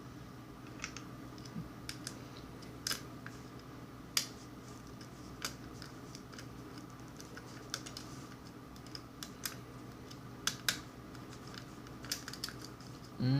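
Light, irregular metallic clicks and ticks of a diamond lock pick working the pin stacks of a six-pin Schley lock cylinder held under tension, with pins clicking as they are set.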